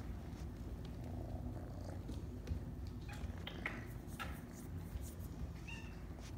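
Kitten purring steadily, a low rumble, with a few light clicks in the second half.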